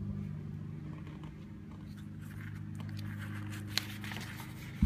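Light rustling and handling of small lock hardware, with two sharp clicks, one near the end, over a steady low hum.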